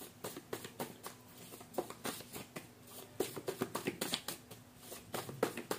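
A deck of tarot cards being shuffled by hand: a run of quick, soft card flicks, sparse at first and coming faster about halfway through.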